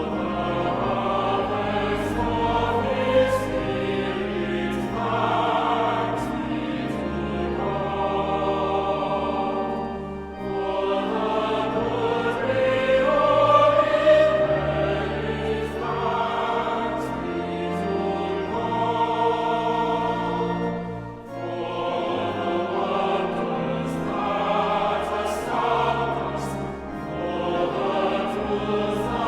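A choir singing a hymn in sustained, flowing phrases, with short breaks between phrases about ten and twenty-one seconds in.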